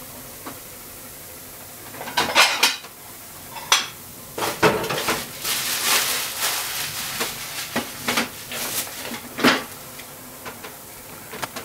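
Kitchen dishes and utensils clinking and clattering: a quiet start, then a run of sharp knocks and clinks from about two seconds in, the loudest just after two seconds, the rest spread over the next seven seconds.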